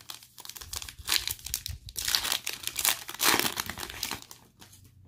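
A trading-card pack wrapper being torn open and crinkled by hand as the cards are pulled out, a dense run of crackling and rustling that dies away in the last second.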